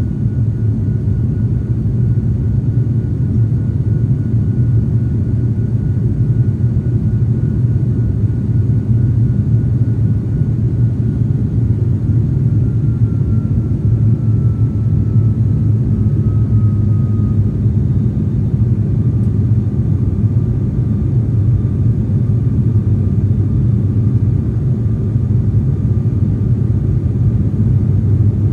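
Steady cabin drone of an ATR 42 turboprop airliner's engines and propellers, a loud low hum with a faint thin high whine that dips slightly in pitch about halfway through.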